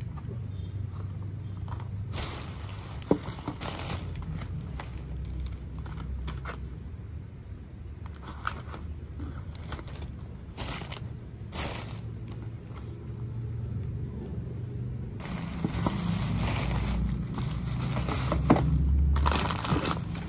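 Plastic shopping bag rustling and crinkling as packages are taken out and put down on a table, with a few sharp knocks as items are set down. The rustling grows denser and louder over the last few seconds as the bag is handled.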